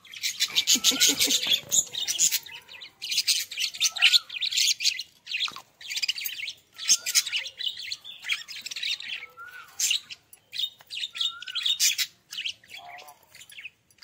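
A flock of budgerigars chirping and chattering: fast, nearly continuous high twittering mixed with short warbled notes, broken only by brief pauses.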